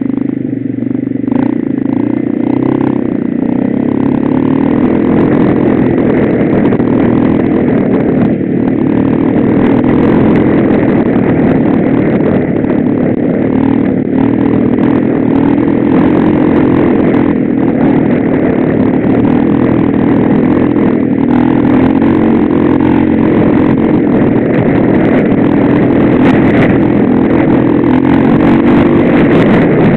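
Off-road vehicle's engine running continuously under way, its pitch wavering up and down a little as the throttle changes, with a few short knocks from the rough trail.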